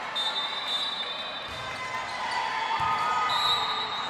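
A ball bounces twice on a gym floor under the murmur of voices and a few squeaks.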